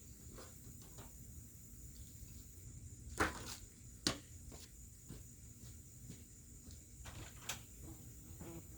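Scattered light clicks and knocks, with three sharper knocks about three, four and seven and a half seconds in.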